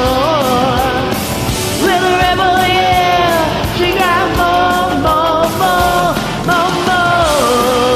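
Rock music from a karaoke backing track, with a melody line of held notes that bend in pitch over a steady band.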